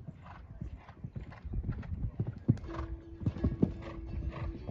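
A horse cantering past close by on a sand arena, a steady run of hoofbeats. A steady tone joins a little past halfway and lasts nearly two seconds.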